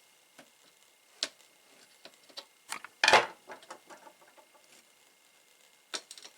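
Scattered small clicks and taps of hands working plastic wire connectors on a TV's circuit board, with one louder clatter about three seconds in.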